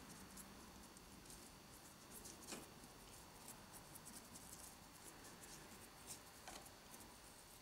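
Faint scratching and light ticking of a small paintbrush working paint into a textured rock mould, over quiet room tone, with a slightly sharper tick about two and a half seconds in.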